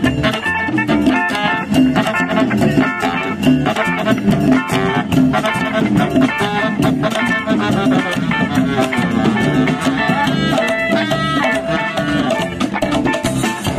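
Live band playing an upbeat number: a baritone saxophone over plucked upright double bass, hollow-body electric guitar and drum kit.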